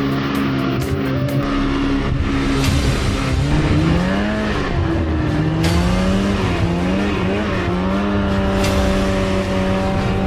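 Polaris RMK 700 snowmobile's two-stroke engine running under load. Its pitch rises and falls as the throttle changes, then holds steady near the end.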